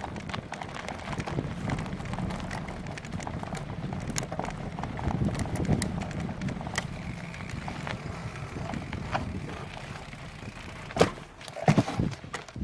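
Wind buffeting the action camera's microphone on a bicycle ride, with the bike rattling and clicking over a rough trail, and two sharp knocks near the end.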